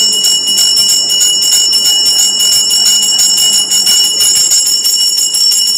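A continuous high-pitched ringing whine, one steady tone with several overtones above it, with faint background noise below; no speech.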